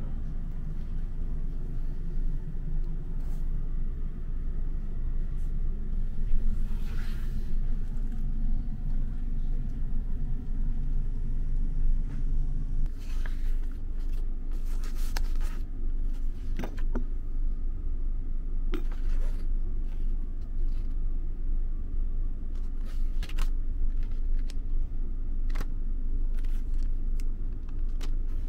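Steady low rumble inside a sleeper-train compartment, with a deeper layer dropping away about halfway through. Over it, from about the middle on, come short clicks and rustles of paper leaflets and a small cardboard box being handled on the berth.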